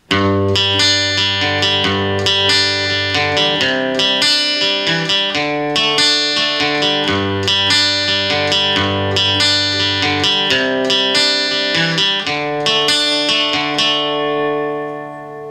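Acoustic guitar picked one string at a time in an arpeggio pattern, about three notes a second, moving through the G, Cadd9 and D chords. The last chord rings out and fades near the end.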